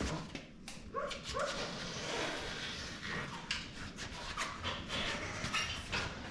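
A dog whimpering and yipping, with a few short rising whines about a second in. Scattered knocks and scuffing run through it.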